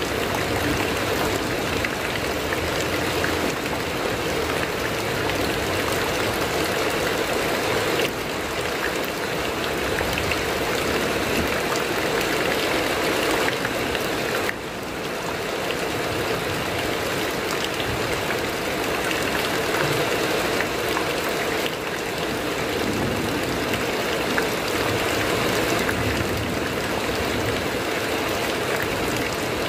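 Heavy rain falling on a corrugated metal roof: a steady, dense patter.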